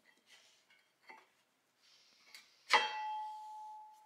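Metal tools and parts being handled: a few faint clicks, then, near the end, a sharp metallic clank that rings on with one clear tone, fading over about a second.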